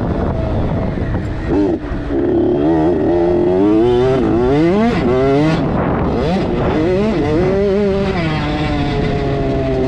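KTM 65 youth dirt bike's small two-stroke single-cylinder engine under riding load, revving up and down in pitch several times as the throttle is worked, with a brief drop in power just before two seconds in, then holding a steadier high rev.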